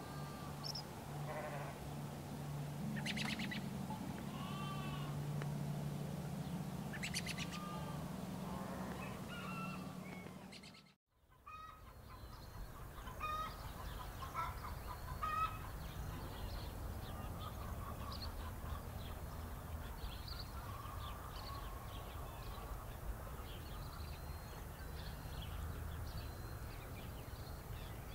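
Outdoor birds chirping and calling in short trills, over a steady low hum in the first part; the sound drops out for a moment partway through, then the chirping goes on.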